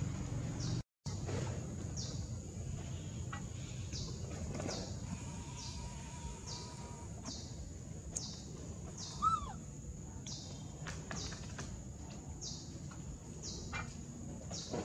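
Outdoor ambience of birds and insects: a steady high buzz with sharp high chirps about once a second over a low rumble, and one short squeak about nine seconds in.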